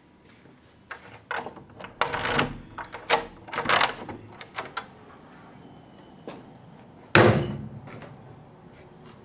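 A door being opened: a run of clicks, rattles and scrapes from its lock and handle, then, about seven seconds in, the door shuts with a single loud bang that rings briefly.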